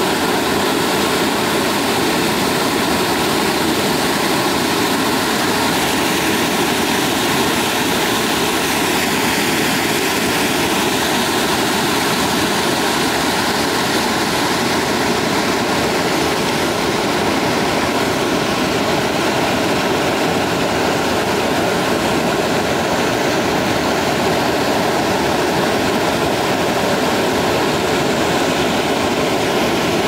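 Waterfall: a loud, steady rush of falling water, unchanging throughout.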